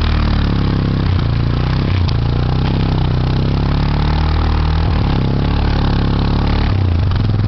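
Yamaha Big Bear 350 ATV's single-cylinder four-stroke engine running, its pitch shifting a few times and stepping up near the end.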